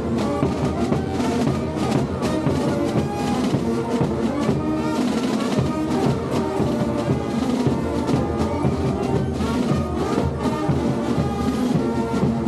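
Brass band with drums playing a carnival folk dance tune with a steady beat.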